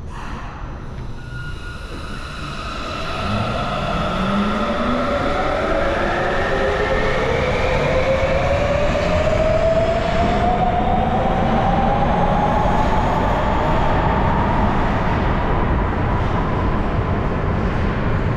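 Sapporo Municipal Subway Namboku Line train accelerating out of the station. Its traction motors give off several whining tones that rise steadily in pitch over about ten seconds, over a steady running rumble that gets louder a few seconds in.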